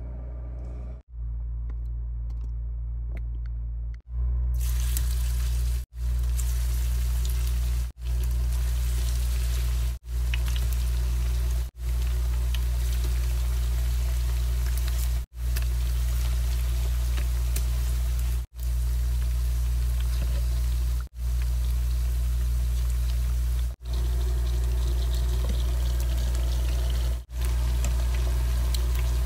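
Chicken thighs frying in a pan of hot oil: a steady crackling sizzle that starts about four seconds in, over a steady low hum, broken by short gaps every two to three seconds.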